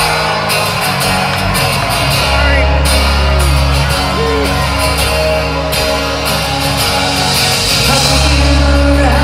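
Rock band playing live through a concert PA in a large venue: held bass notes and chords that change every couple of seconds, with voices from the crowd over the music.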